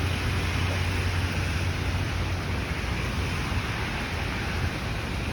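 Steady hiss of heavy rain falling during a thunderstorm, with a low rumble underneath that fades after the first couple of seconds.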